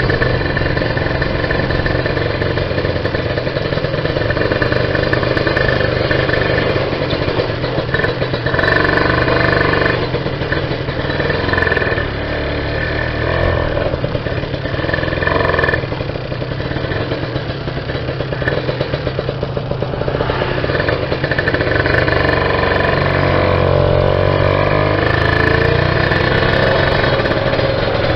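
Kawasaki Ninja R's 150 cc two-stroke single-cylinder engine running, its pitch shifting up and down with the throttle; the carburettor is set rich.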